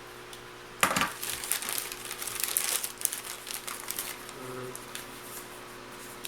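MRE accessory packet's plastic wrapper being cut open with a knife and pulled apart: a sharp rustle about a second in, then a couple of seconds of crinkling crackle that dies away.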